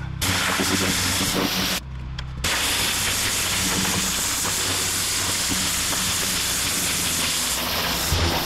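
Pressure washer lance jetting water onto brick block paving, a loud steady hiss. The spray cuts out briefly about two seconds in, leaving only the low hum of the pressure washer's engine, then starts again.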